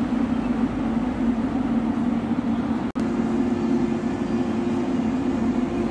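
Steady low rumble and hum of an Indian Railways double-decker passenger train, with a faint steady tone joining halfway through and the sound cutting out for an instant about three seconds in.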